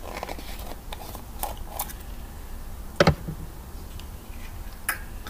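Hands handling a slime container to get the slime out: scattered light clicks and rustles, a sharp knock about three seconds in, and another click near the end.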